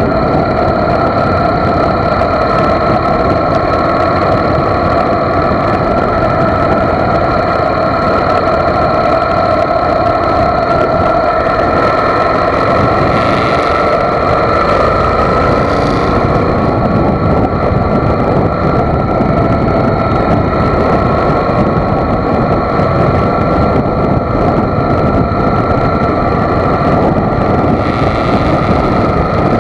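Motorcycle cruising at highway speed: a steady engine drone under heavy wind and road noise.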